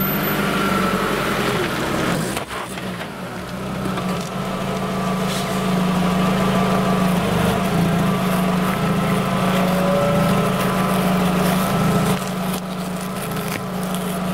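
Car engine idling steadily close by, with a few brief crackling handling sounds over it.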